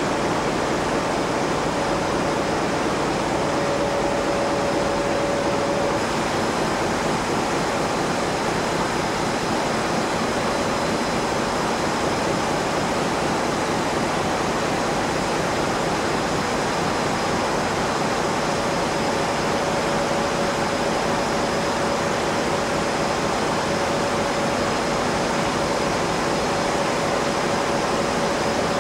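Steady, loud din of a ship's engine room: large marine diesel engines running, a dense even roar with a thin steady whine riding over it.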